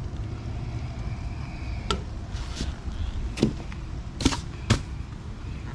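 Latches on a standby generator's enclosure panels being worked by hand: a few sharp clicks and knocks about two, three and a half and four and a half seconds in, over a steady low rumble.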